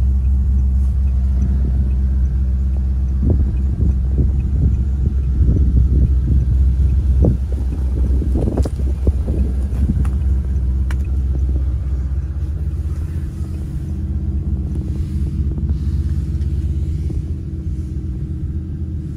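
Maserati 3200 GT's 3.2-litre twin-turbo V8 idling steadily, heard from inside the cabin. Light knocks and rustling come in the middle.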